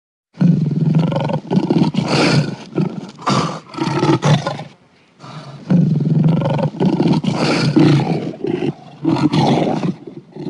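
Mountain lion calling in two long bouts of loud, rough, repeated calls, with a short break about halfway through.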